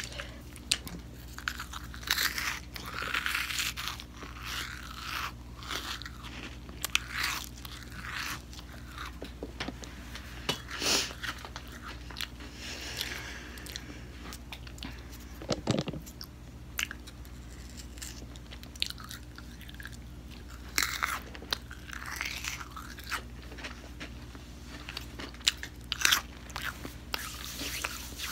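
Crunchy snack bitten and chewed close to the microphone: a string of sharp crunches, irregularly spaced, over a steady low hum.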